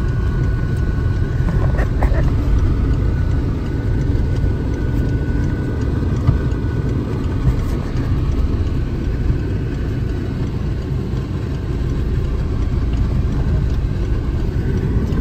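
Car running, heard from inside the cabin: a steady low engine and tyre rumble as it moves slowly.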